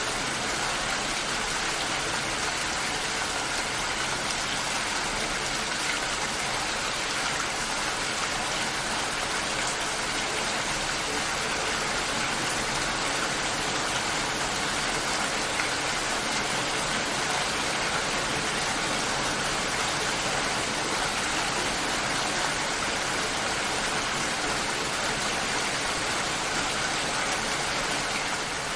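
Steady rainfall, an even unbroken hiss of rain.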